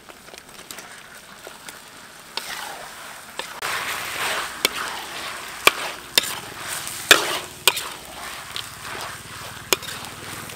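Raw chicken pieces sizzling as they are stir-fried in curry paste in a wok. The sizzle grows louder about two seconds in, and from then on a metal ladle scrapes and clacks against the wok several times.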